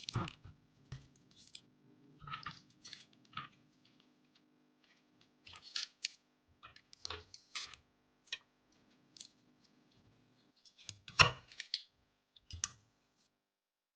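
Irregular clicks and taps of computer hardware being handled and fitted during a PC build, loudest in a cluster about eleven seconds in. A faint steady hum lies underneath and stops about ten and a half seconds in.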